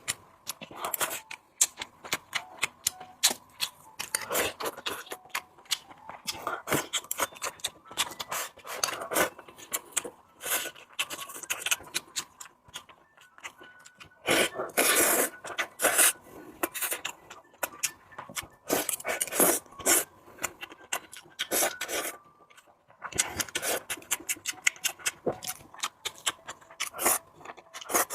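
Close-miked eating sounds: mouthfuls of spicy pork rice being chewed, with irregular wet clicks and smacks of the mouth.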